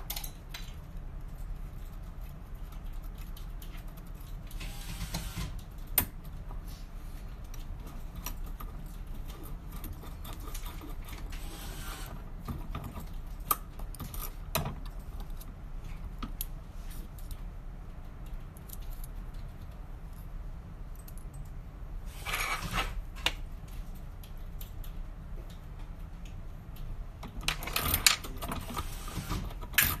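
A metal 2-in-1 lock pick working inside a brass Kwikset KW5 pin-tumbler cylinder: scattered small metallic clicks and scraping, with louder scraping about three-quarters through and again near the end, over a steady low hum.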